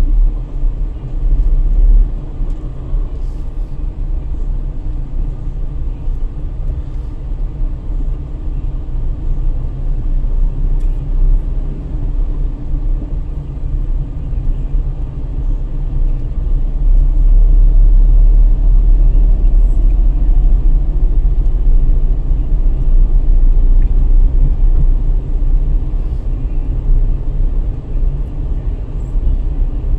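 Steady low road and engine rumble from inside a moving car, growing louder a little past halfway as it picks up speed on an open street.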